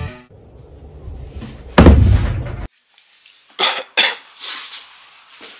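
A deep, heavy hit from the end of the video intro about two seconds in, cut off abruptly. Then, in the bare metal van interior, two short, sharp noises half a second apart, followed by faint scattered handling noises.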